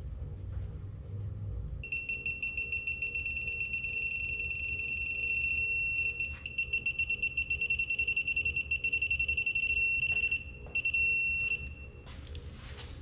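A digital torque wrench's electronic beeper sounds a high-pitched tone while a connecting-rod cap bolt is being tightened. The tone starts about two seconds in, pulses rapidly through the middle with a few short breaks, holds steadier near the end and stops about a second before the end. A beeper like this signals that the set torque is near or reached.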